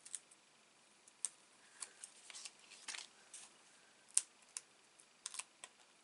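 Irregular little clicks and crinkles of paper and peel-off backing handled by fingers: small foam adhesive dimensionals being peeled and pressed onto card pieces. The sharpest click comes about four seconds in.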